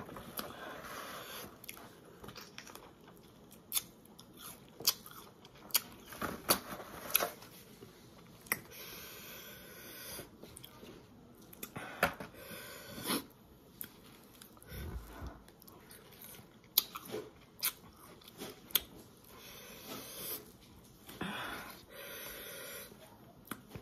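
A person biting into and chewing Marian plums (plum mango) close to the microphone: irregular crisp crunches, with chewing noise between them.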